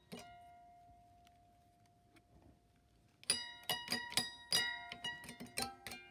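Steel strings of an acoustic guitar plucked with a pick on the headstock, behind the nut, giving high bell-like pings. One ping rings and fades over about three seconds. Then, a little past halfway, a quick run of pings follows at about three or four a second.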